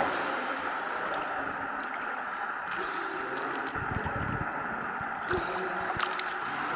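Pool water splashing and sloshing steadily around a child swimming breaststroke, with a few light slaps of water.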